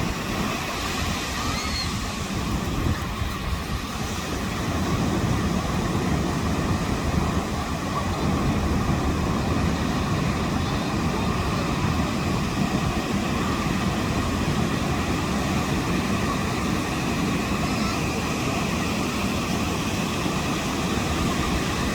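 Ocean surf: waves washing in as a steady, continuous rush of water noise, heaviest in the low end.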